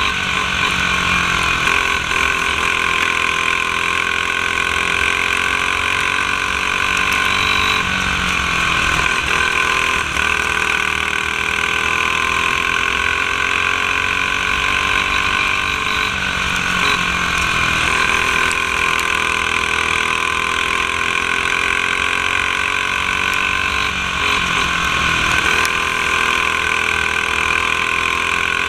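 Racing go-kart's single-cylinder four-stroke clone engine with a blue restrictor plate, running flat out and heard from on board, revs falling into each turn and climbing again down the straight, about every eight seconds, lap after lap.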